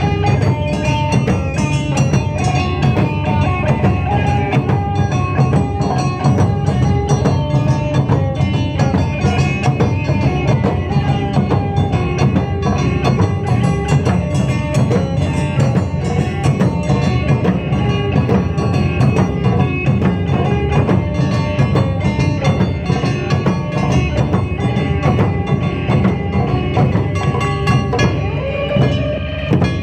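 Live wadaiko (Japanese taiko drum) ensemble playing fast, dense, steady drumming, with held melodic notes over the drums.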